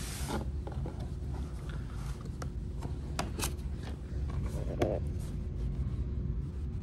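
Handling noises as a white paperboard takeout box is opened and tilted toward the camera: a few sharp taps and light rubbing, with the loudest tap a little under five seconds in, over a steady low room hum.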